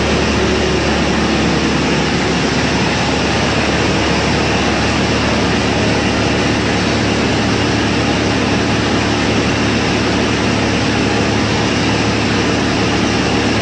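Drum wood chipper running with a loud, steady mechanical noise and low hum that does not change.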